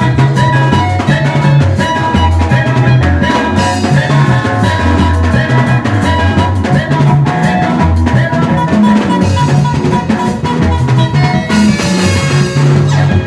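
Upbeat band music with drum kit, a pulsing bass line and melodic instruments, playing steadily throughout.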